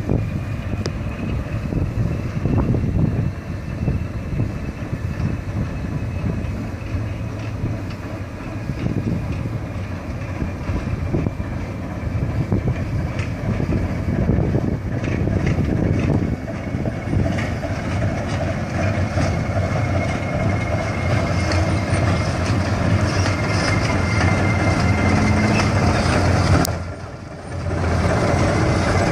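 Diesel switcher locomotive running as it approaches and passes close by, a steady low engine rumble. About halfway through its wheels click over rail joints, and the sound drops briefly near the end.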